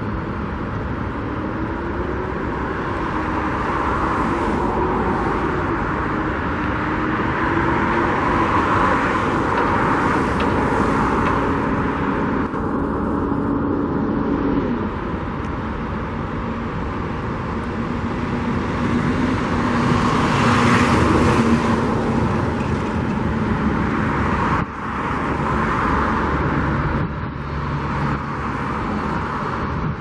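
Road traffic: a steady hum of vehicles with several passing one after another, their noise swelling and fading, and an engine note that rises and falls in pitch.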